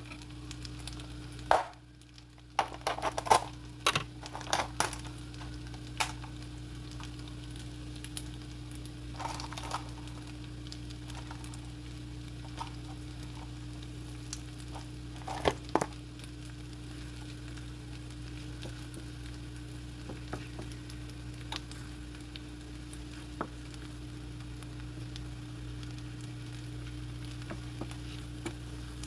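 Cabbage and egg-white casserole sizzling in a skillet on the stove, over a steady low hum. A utensil clinks and knocks on the pan several times in the first few seconds, and a few more times around the middle.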